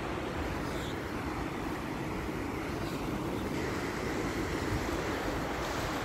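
Steady rushing of a river pouring over a weir, with wind buffeting the microphone in a low, uneven rumble.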